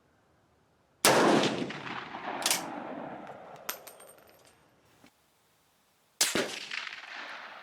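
Two rifle shots from a Swiss K31 firing 7.5×55mm GP11 ammunition, about five seconds apart, each followed by a long echoing decay. A few sharp metallic clicks come between the shots.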